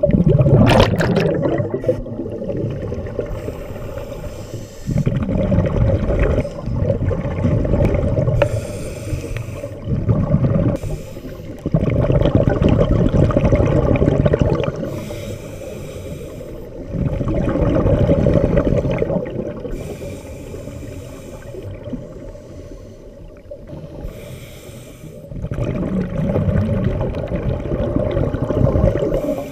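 Scuba diver breathing through a regulator underwater. A hiss on each inhale alternates with a long burst of bubbling exhaust on each exhale, repeating every few seconds. A sharp click sounds about a second in.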